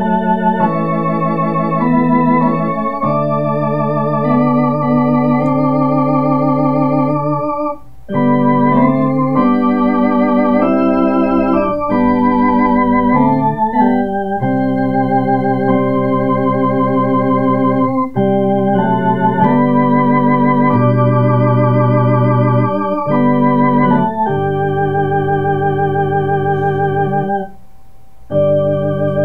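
A two-manual electronic organ playing a slow hymn in G major in sustained chords, with vibrato wavering on the held notes. The phrases break off briefly about eight seconds in and again near the end.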